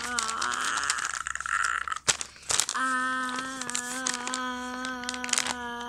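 Paper rustling and crinkling as sheets are handled. About three seconds in, a child's voice starts holding one long, steady note to the end, with a slight waver.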